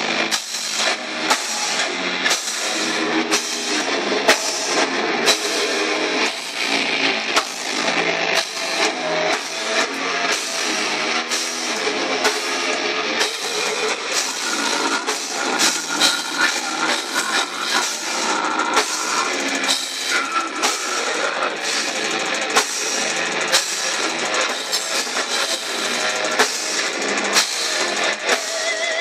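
Death metal band playing live: distorted electric guitars and bass over a drum kit, with hard regular drum and cymbal hits, about two a second at first and quicker in the second half.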